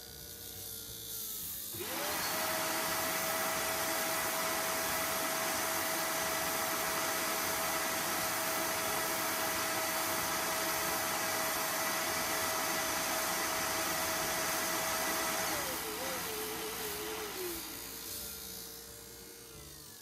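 Parkside PTSG 140 C2 bench disc sander running while a small piece is sanded against the disc. A steady high whine with a hiss comes up sharply about two seconds in and holds, then winds down with a wavering fall about sixteen seconds in and fades.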